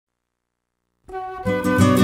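Silence for about a second, then instrumental music begins and fills out with a steady beat about half a second later.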